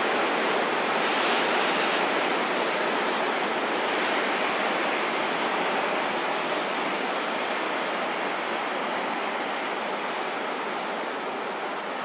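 Freight train of flat and tank wagons rolling past on a far track: a steady rolling noise that slowly fades. A thin high whine joins it about two seconds in and dies away after about nine seconds.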